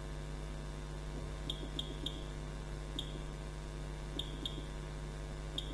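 Key presses on the keypad of a CBA1000 circuit breaker analyzer, each giving a short high beep: about seven beeps, singly and in quick twos and threes, over a steady low hum.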